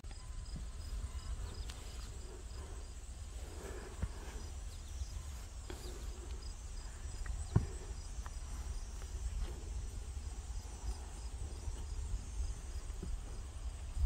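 Outdoor summer ambience: a faint, evenly pulsed high chirping of insects over a steady low rumble, with a few light clicks and one sharp knock about seven and a half seconds in.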